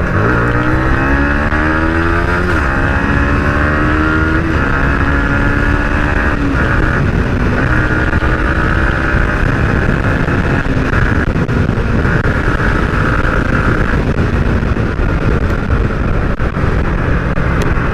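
Single-cylinder motorcycle engine accelerating through the gears, its pitch rising and dropping back at upshifts about two and a half, four and a half and six and a half seconds in, then running steadily, under a steady rush of wind on the helmet-mounted microphone.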